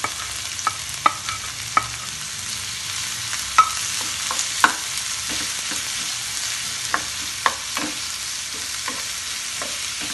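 Chopped onion and tomato sizzling in hot oil in a frying pan while a wooden spatula stirs them. The spatula knocks and scrapes against the pan at irregular moments, loudest twice around the middle.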